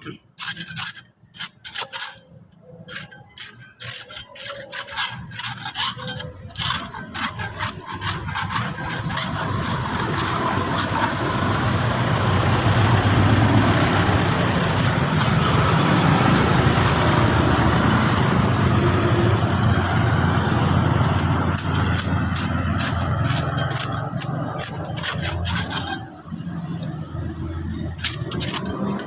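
A motor vehicle's engine running, growing louder over several seconds and then fading away, after a few scattered clicks or scrapes.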